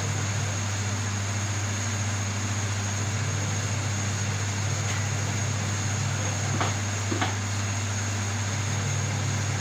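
Steady low machine hum with an even hiss and a thin high whine, broken by two faint clicks about two-thirds of the way through.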